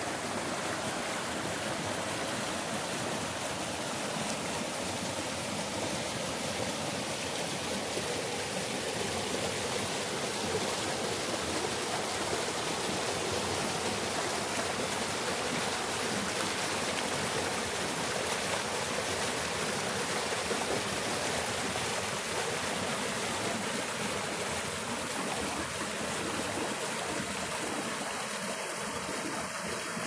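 Fast-flowing stream rushing through a narrow earthen channel over stones, a steady, even rush of water.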